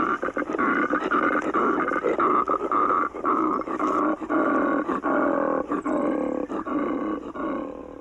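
Male koala bellowing: a long, loud, rasping call made of rapid pulses over a deep drawn-out tone, fading away just before the end.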